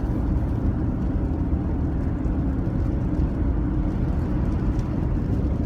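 Steady low road and engine noise of a car cruising at highway speed, heard from inside the cabin.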